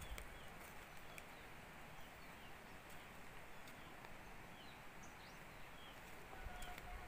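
Faint outdoor ambience with small birds chirping here and there, and a short held note near the end.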